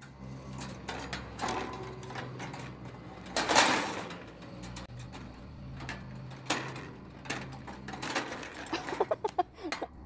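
A small wire bird cage rattling and clicking as its wire lid is handled and shut on a rainbow lorikeet, over a steady low hum. A louder rustle comes about three and a half seconds in.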